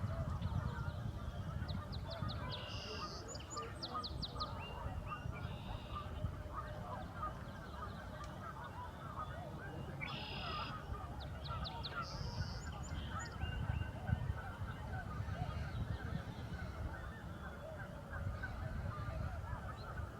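A large flock of wild geese calling continuously, many overlapping honks forming a dense chorus, over a low steady rumble. A few short runs of rapid high ticks stand out twice.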